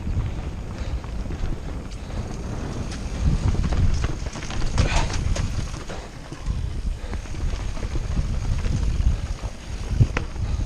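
Wind buffeting the microphone over the rattle and knocks of a mountain bike riding over rough ground, with a brief higher rasp about halfway through.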